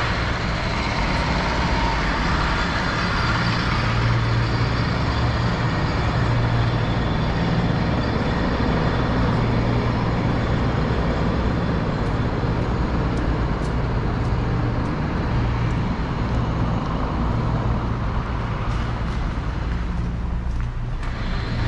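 Street traffic: motor vehicles running close by, a steady low engine sound under a wide wash of road noise.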